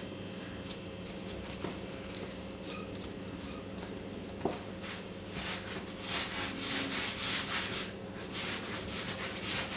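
Hands rolling and pressing bread dough on a floured work surface: soft rubbing swishes that come thicker in the second half, with one light knock about halfway through, over a faint steady hum.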